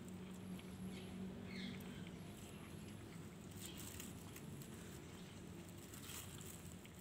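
Faint sounds of a cat eating food off concrete: a few soft, scattered clicks and crunches over a steady low hum.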